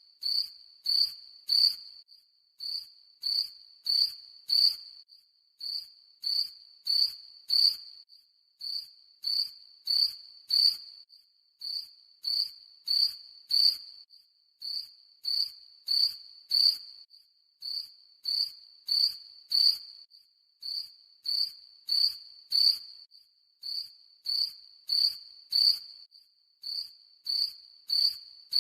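Cricket chirping: short, high, steady-pitched chirps in groups of three or four, the groups repeating evenly with brief pauses between them.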